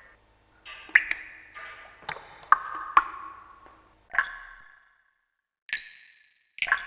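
Water drops falling one at a time, each a sharp plink with a short ringing tone that fades within about a second. The pitch changes from drop to drop, and the drops come at irregular intervals, about six of them, with a longer pause near the end.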